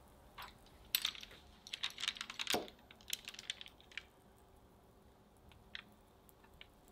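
Metal pizza-cutter wheel rolling through chilled chocolate cookie dough on parchment paper: a quick run of clicks and crackles as the wheel scores the dough and paper, thickest in the first three seconds, then a few scattered ticks.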